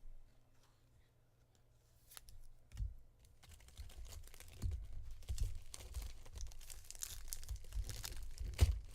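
Panini trading-card pack wrapper being torn open and crinkled, starting about two seconds in, with soft knocks as the pack and cards are handled.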